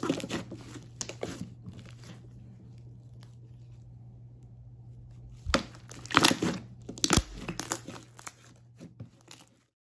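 Thick slime being squeezed and kneaded by hand, giving bursts of crackling, popping and tearing sounds, loudest a little past halfway. It stops abruptly just before the end.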